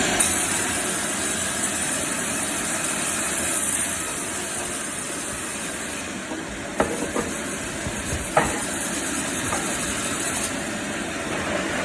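Bandsaw running with a steady hiss-like noise, with a few sharp knocks around the middle.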